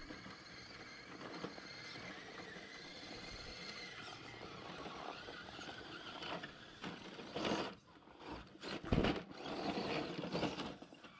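Element RC Enduro Trailwalker RC crawler's electric motor and gear drive whining as the truck crawls over tree roots: a steady high whine, with louder, rougher bursts in the last few seconds.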